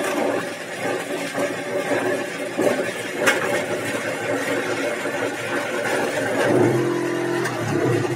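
Flexible rubber mould and its rigid outer shell being handled and pulled off a cast concrete sculpture: uneven rubbing and flapping noise, with one sharp knock about three seconds in. About six and a half seconds in, a steady pitched hum joins for about a second.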